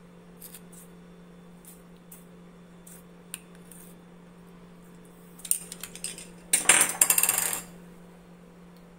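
Stainless steel plate and utensils being handled: a few light clinks, then about five and a half seconds in a run of clinks followed by about a second of dense metallic clattering. A steady low hum runs underneath.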